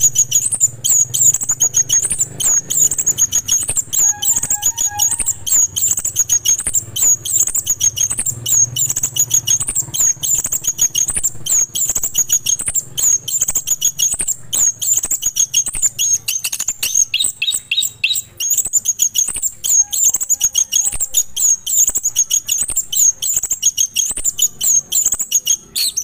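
Chestnut-capped thrush (Geokichla interpres) singing without pause: a fast, high-pitched stream of short chirps and trills.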